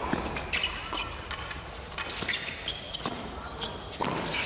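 Tennis rally on a hard court: racquets striking the ball in sharp pops a second or so apart, with short high sneaker squeaks on the court surface between shots.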